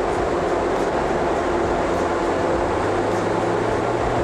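Mazda RX-8's twin-rotor rotary engine under full load on a rolling-road dyno, revs climbing through the gears' pull, with dyno roller and fan noise. The engine is down on compression from worn apex seals.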